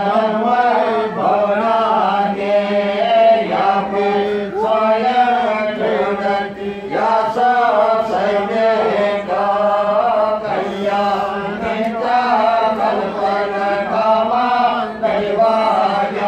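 Several voices chanting Sanskrit mantras together in a continuous recitation, with a steady low hum underneath.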